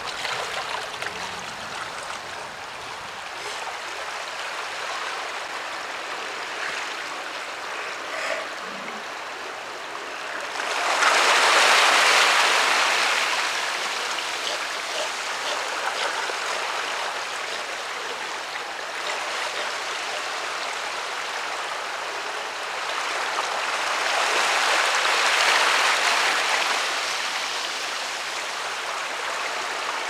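Surf washing continuously over rocky shoals, with two bigger waves surging in, about eleven seconds in and again near twenty-five seconds.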